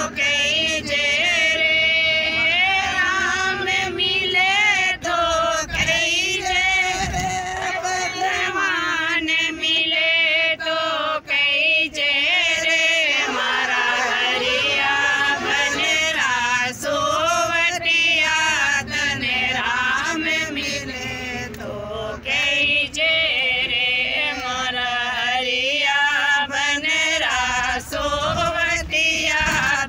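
A woman singing a Marwari devotional bhajan, one continuous wavering melody with only short pauses for breath.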